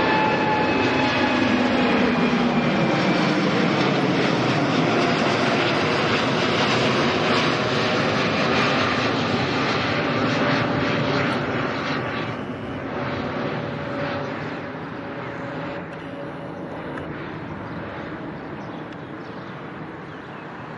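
Jet engines of an El Al Boeing 787-9 Dreamliner climbing out just after takeoff: a loud, steady roar whose tones slide down in pitch as it passes overhead. It fades gradually over the second half as the airliner climbs away.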